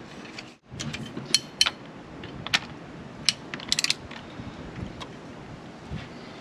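Ratchet of a torque wrench clicking as a bolt is tightened toward 50, in separate sharp clicks with a quick cluster about four seconds in.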